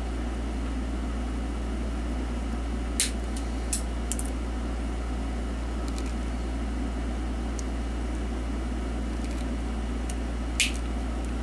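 Sharp clicks of the metal tabs on an IF transformer can being cut off: one about three seconds in, two more shortly after, and one near the end, over a steady background hum.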